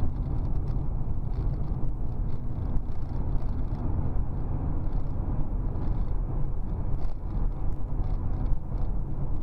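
Steady low rumble of a car driving on a highway, engine and road noise heard from inside the cabin through a dashcam, with faint light ticks scattered through it.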